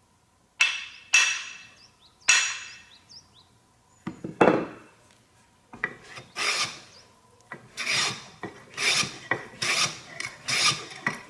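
A hand plane with a freshly sharpened blade taking thin shavings off hard ipe wood: about a dozen short planing strokes, a few spaced out at first and then quicker in the second half. The blade cuts cleanly through the hard wood.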